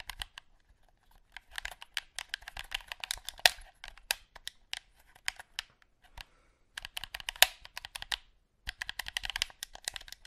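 Rapid, irregular clicking of buttons being pressed hard and fast, as in button-mashing. It comes in bursts with two short pauses in the second half.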